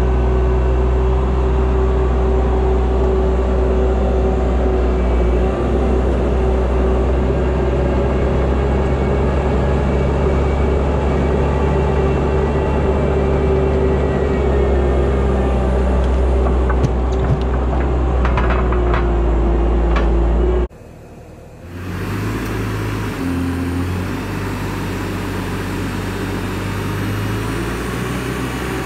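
Bobcat T650 compact track loader's diesel engine running steadily, heard from inside the cab, with a few sharp knocks past the middle. About two-thirds through, the sound cuts off briefly, then the loader is heard from outside, its engine working as it lifts a grapple-load of logs.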